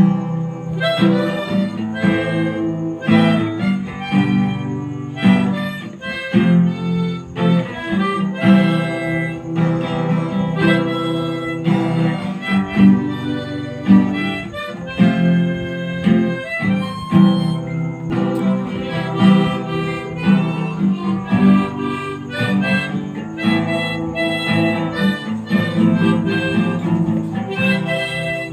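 Harmonica playing over guitar, a continuous stretch of music with steady rhythmic note attacks.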